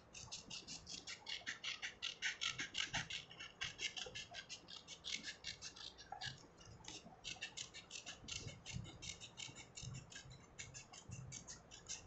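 Scissors snipping through a sheet of A4 paper: a quick run of short crisp snips, several a second, with brief pauses as the paper is turned.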